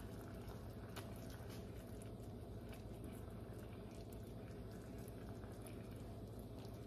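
Creamy sauce simmering quietly in a pan around cod fillets, with faint scattered pops and ticks over a low steady hum.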